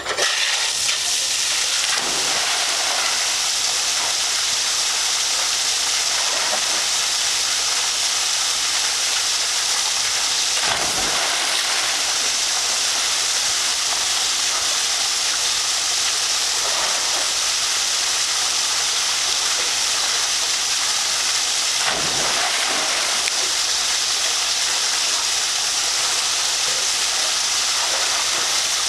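Steady rush of running water, with a splash about two seconds in, another about eleven seconds in and a third about twenty-two seconds in, a dog going into a pool.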